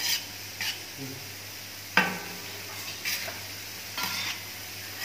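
Shredded vegetables sizzling on a hot steel flat-top griddle while a metal spatula scrapes and clinks against the plate about five times, unevenly spaced, as the mix is turned.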